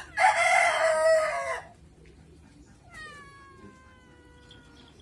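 Domestic cat yowling loudly and raspily for about a second and a half. About three seconds in comes a second, quieter drawn-out meow that slides down in pitch. The cat is shut in a cage, which it dislikes.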